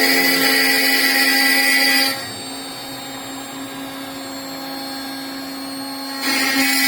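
CNC router spindle running with a steady whine, cutting with a loud high hiss that drops away about two seconds in, leaving the quieter spindle running, and comes back near the end.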